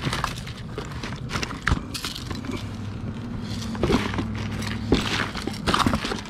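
Hands rummaging through a cardboard box of costume jewellery: metal chains, bangles and trinkets clinking and rattling against each other, with scattered sharp clicks.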